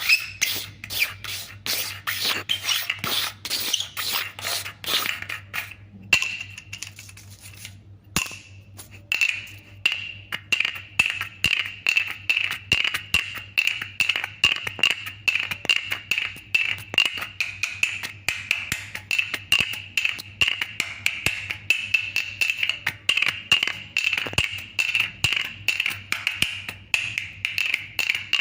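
Plastic bottle cap clicking and knocking against a hard surface. At first the clicks are dense and scratchy. After a short pause they become rapid and regular, about four a second, each with a bright, slightly ringing tick.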